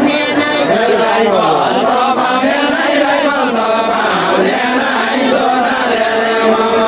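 A group of voices chanting a Deuda folk song together, several voices overlapping without a break.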